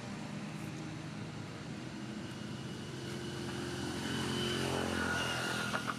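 A distant engine's steady drone, growing a little louder about four seconds in, with a few faint clicks near the end.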